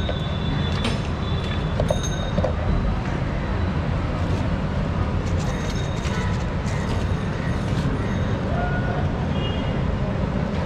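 Steady roadside traffic noise with a heavy low rumble, a few faint high tones near the end.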